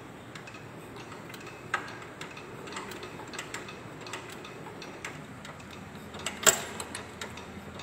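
Kubota single-cylinder diesel engine turned over slowly by its hand crank with the decompression lever held, giving scattered light mechanical clicks and ticks, a sharper click near two seconds in and a louder one about six and a half seconds in. The engine is being cranked to build pressure for a plunger test on its fuel injection pump.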